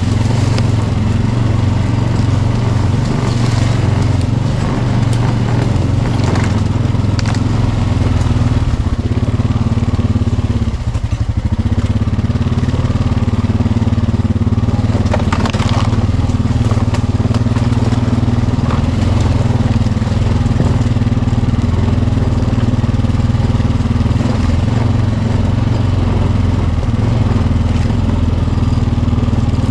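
Four-wheeler (ATV) engine running steadily while riding, with a brief drop in engine sound about eleven seconds in.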